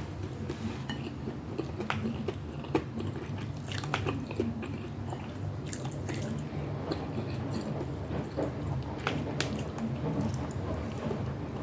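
Close-miked mouth sounds of someone eating pinakbet, a Filipino vegetable stew: wet chewing, biting and smacking made of many short irregular clicks, over a steady low hum.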